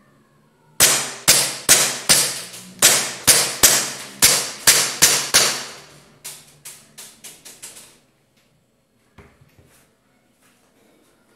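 Taurus PT 24/7 G2 CO2 gas-blowback airsoft pistol fired in quick succession, about a dozen sharp cracks at two to three a second, with the slide cycling back on each shot. The last several shots come noticeably weaker and quieter. A few faint clicks follow about a second later.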